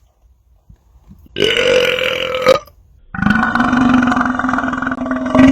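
A man belching twice after gulping carbonated Mug root beer. A shorter belch comes about a second and a half in, then a long belch held at a steady pitch for about two and a half seconds, the loudest of the two.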